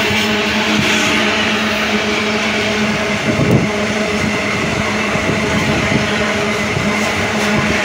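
Loaded iron-ore gondola cars of a freight train rolling past close by at speed: steel wheels running on the rail with a steady hum, and irregular knocks as wheelsets pass, the clearest a little over three seconds in.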